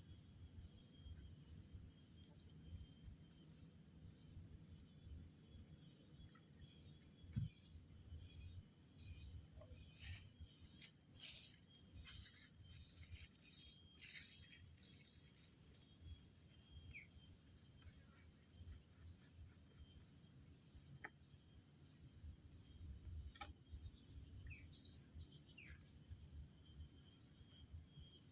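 Quiet ambience: a steady high-pitched insect drone, scattered short bird chirps and a low rumble, with a single knock about seven seconds in.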